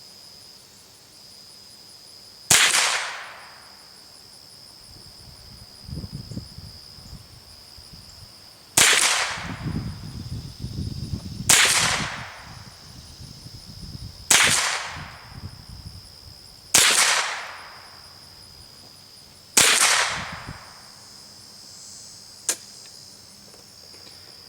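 Six single shots from a Henry AR-7 semi-automatic .22 LR survival rifle. The first is followed by a pause of about six seconds, and the rest come about two to three seconds apart. Insects buzz steadily at a high pitch throughout, and there is a faint click near the end.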